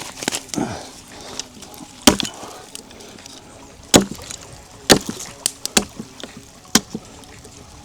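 A blade chopping at a piece of wood: about six sharp chops at uneven intervals.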